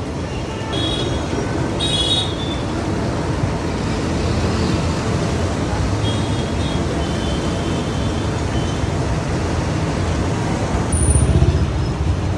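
Steady road-traffic rumble, with a louder swell near the end and a few brief high clinks about a second or two in.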